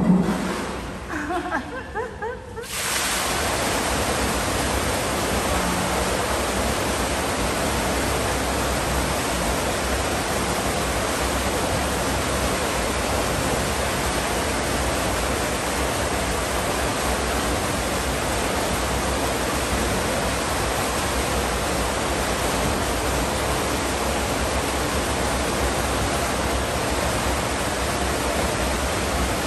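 Water curtain of a pool's wall fountain pouring steadily into an indoor swimming pool, a dense even rush that switches on suddenly about three seconds in. A brief loud sound comes at the very start.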